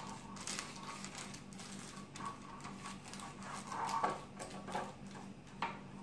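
Faint, irregular rustling and light tapping of a pastry brush spreading oil over butter paper lining a loaf tin, the paper crinkling as it is handled.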